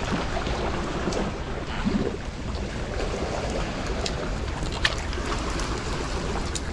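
Wind rumbling on the microphone over the steady rush of river water, with a few light clicks.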